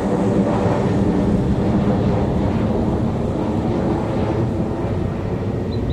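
Twin-engine jet airliner flying overhead: a steady, loud jet engine rumble with a droning buzz, at its loudest in the first couple of seconds and easing off slightly after. A rapid series of high chirps starts just before the end.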